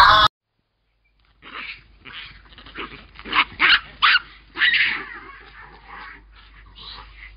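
Geladas (gelada baboons) calling: a quick run of short, sharp, barking yelps, loudest around the middle and then fading. A loud sound is cut off abruptly right at the start.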